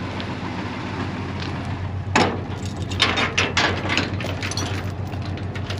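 Steel tow chain rattling and clinking as it is handled and wrapped around a truck's front end, starting with a sharp clink about two seconds in. A steady low engine hum runs underneath.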